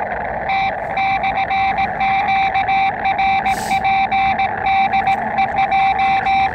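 Morse code (CW) from an Elecraft KX2 transceiver's speaker: a single steady tone keyed on and off in dots and dashes over a constant hiss of band noise. It is a QRP station answering with the call 'KKC/QRP DE JF3R…'.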